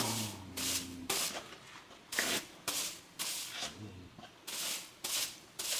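Whisk broom brushing over wood in a run of short, quick swishes, roughly two a second with a couple of pauses.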